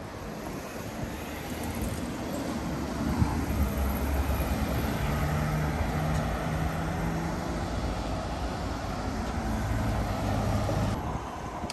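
Road traffic: motor vehicles driving past close by, their engine rumble building over the first few seconds and holding, then dropping suddenly near the end.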